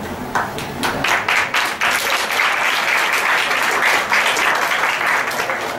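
A room audience applauding. It starts with scattered claps and swells within about a second and a half into steady, full applause.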